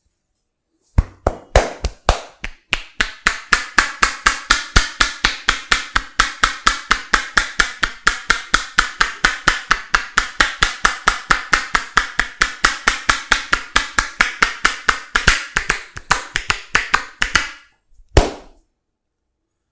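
A barber's hands striking rhythmically in percussive massage (tapotement), about five sharp slaps a second for some sixteen seconds, then a short pause and one last strike.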